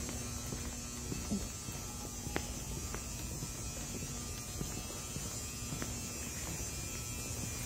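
Steady low background hum with a few faint clicks and taps scattered through it.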